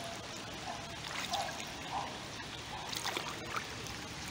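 Rain falling on deep floodwater: an even hiss with a few brief, sharper splashes.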